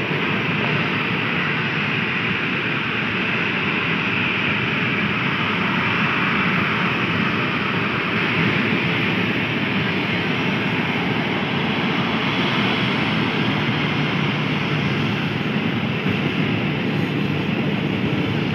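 Boeing 737 airliner's jet engines running steadily as it taxis.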